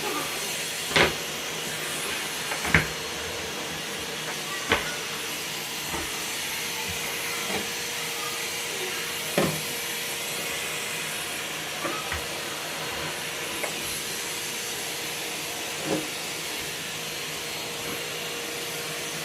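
Henry cylinder vacuum cleaner running steadily, with short sharp knocks and clicks every second or two.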